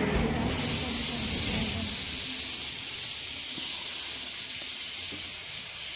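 A steady high hiss that starts abruptly about half a second in and holds even, with faint low sounds beneath it that fade out in the first two seconds.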